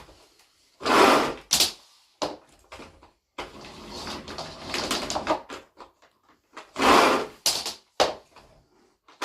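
A vacuum cleaner's power cord yanked hard a few times like a lawnmower pull-start, each pull a short loud rush of rattling and knocking; no motor starts.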